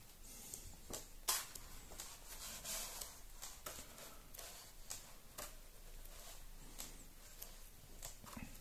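Paper pages of a large hardcover comic album being turned by hand: faint rustles and soft flicks at irregular moments, the loudest about a second in.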